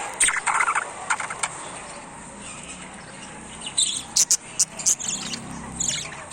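Baby parrots giving short squeaky chirps: a few in the first second and a quick cluster of sharp, high squeaks about four to six seconds in.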